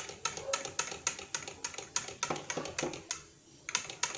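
Metal spoon clinking against the inside of a drinking glass while stirring juice: a quick run of light taps, about four or five a second, that pauses about three seconds in, followed by a few more taps.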